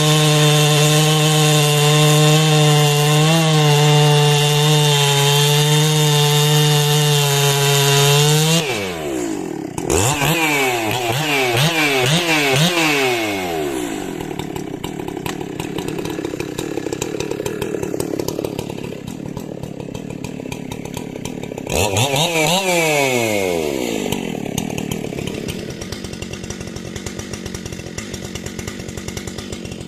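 A 90cc-class two-stroke professional chainsaw held at full throttle with a steady high engine note, then let off about a third of the way in. It drops toward idle and is blipped several times, its pitch sweeping down and up, runs lower, revs briefly once more about two-thirds of the way through, and settles back to idle.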